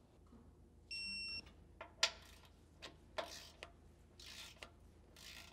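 A digital torque wrench gives one short electronic beep about a second in, signalling that the bolt has reached its set torque. A sharp click and several short rasping ratchet strokes follow as the wrench is worked on the bumper's mounting bolts.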